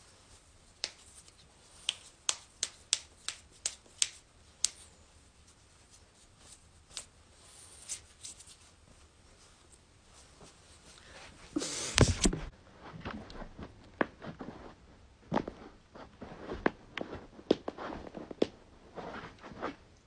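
Finger knuckles cracking: a run of sharp single pops, about nine in the first five seconds, then a few sparse ones. About twelve seconds in comes a louder thump with a rustle, and a further string of joint pops follows.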